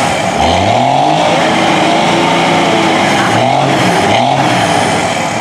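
Lifted Dodge pickup mud truck's engine revving hard again and again, the pitch climbing on each rev, over the steady churn and spray of its big tractor-tread tires throwing mud and water.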